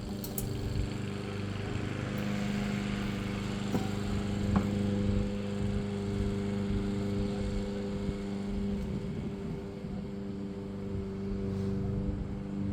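A motor runs steadily with an even, low hum throughout. About four seconds in come two short, sharp clicks, typical of plastic panel tabs being locked together.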